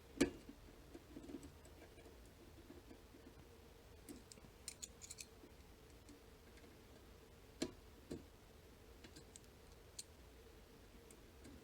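Faint, scattered metallic clicks and ticks of a small tubular lock being picked with a probe and tension wrench, as the pins are pushed down one by one until they click. A few sharper clicks stand out among the quieter ticking.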